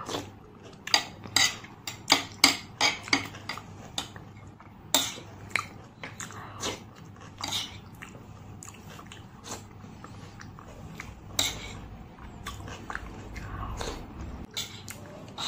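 Close-miked wet chewing and mouth-smacking of someone eating ghugni, a soft pea curry, with a spoon clicking and scraping against the plate. The sharp clicks come quickly in the first half and thin out later.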